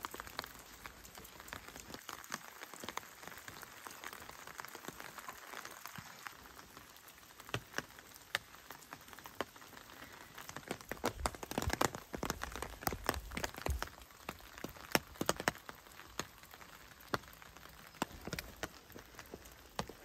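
Light rain falling, a steady hiss with scattered sharp drips and taps that come thicker in the second half.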